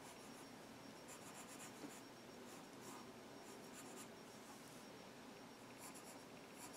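Faint scratching of a Crayola colored pencil sketching on paper, in short runs of strokes with brief pauses between them.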